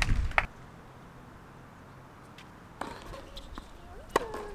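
Tennis ball impacts on a hard court: a sharp pop about half a second in, and another sharp pop about four seconds in, with quiet court ambience between.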